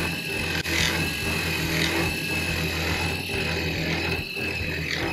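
CNC1310 desktop CNC router's spindle milling a steel plate with a small face mill: a steady low hum and high whine, with the cutting noise swelling about once a second.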